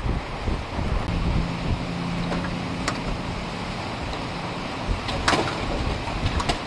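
Hurricane wind gusting and buffeting the microphone, with a few sharp knocks about three, five and six and a half seconds in.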